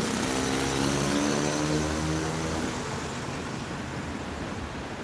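A motor vehicle's engine passing by, its hum swelling and then fading over about three seconds and dropping slightly in pitch, over steady street traffic noise.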